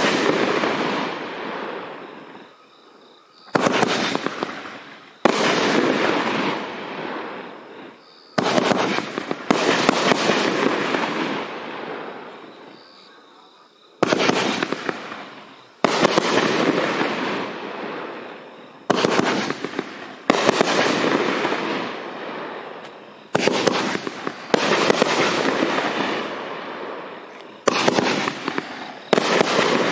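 24-shot 500 g consumer firework cake firing shot after shot: sharp bangs every one to four seconds, often in pairs, each trailing off in a rush of noise that fades over a couple of seconds.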